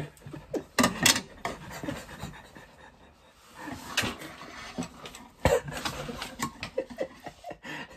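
A person breathing hard through the burn of very spicy fire noodles, with occasional sharp clicks of metal chopsticks against a metal serving tray.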